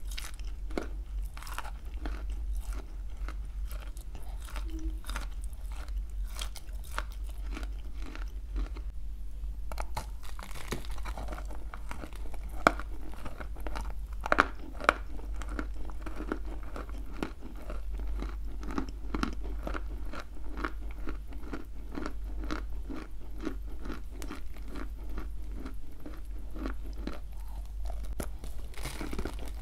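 Dry lumps of clay topped with a creamy paste being bitten and chewed, giving dense crisp crunching. There is a short lull about nine seconds in and a few sharper snaps between about twelve and fifteen seconds in. A steady low hum runs underneath.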